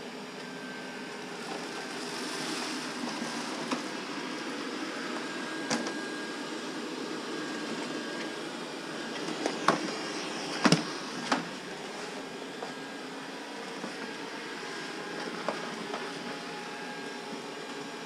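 IKOHS Netbot S15 robot vacuum cleaner running, a steady fan hum with a faint high whine, sweeping up debris sprinkled on the floor. A few sharp clicks stand out about ten seconds in.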